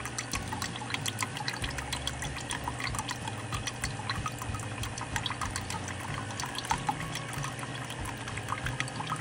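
A thin stream of fresh cold-pressed apple cider running from a clear plastic tube into a bucket of cider, trickling steadily with many small splashes onto the foam.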